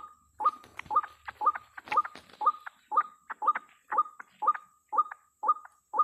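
White-breasted waterhen (ruak-ruak) calling: a steady run of short, repeated croaking notes, about two a second.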